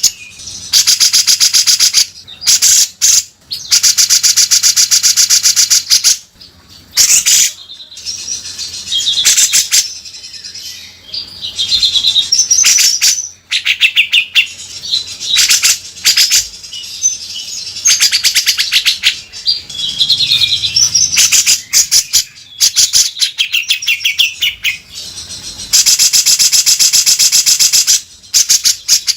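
Grey-cheeked bulbul (cucak jenggot) singing loudly, with long harsh, rasping rattles ('beset kasar') that alternate with short whistled trills, over and over.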